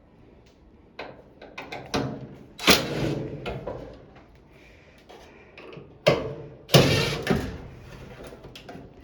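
A run of knocks and clicks from things being handled, with two loud clattering bangs, one nearly three seconds in and one about seven seconds in, each ringing out for about a second.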